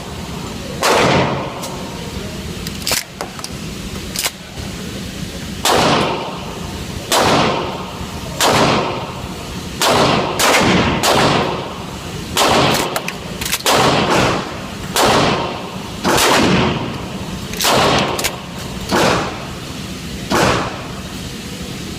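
Mossberg 500 pump-action shotgun being fired repeatedly, about a dozen loud shots at irregular intervals of one to two seconds, each with an echoing tail.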